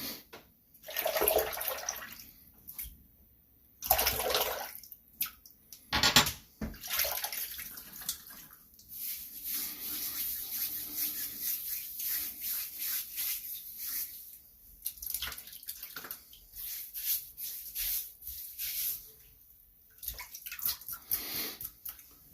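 Wet-shave sounds on a lathered scalp: a few separate splashes of water in the first several seconds, then a long run of wet, crackling strokes through the lather.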